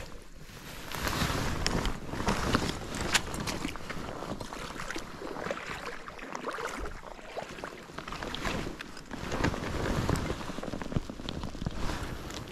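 Wind buffeting the microphone, rising and falling, with clothing rustle and light splashing of shallow lake water as a brown trout is held in the water and released.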